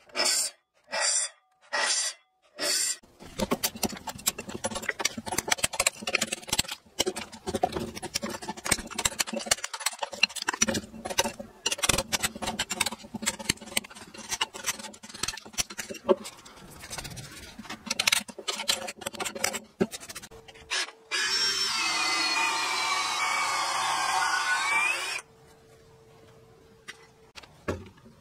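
Hatchet chopping into the end of a wooden beam, many quick irregular strikes splitting off chips. Near the end a power drill runs steadily for a few seconds, its pitch shifting.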